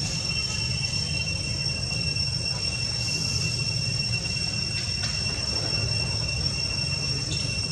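Steady high-pitched insect buzzing, held at two even pitches without a break, over a constant low rumble.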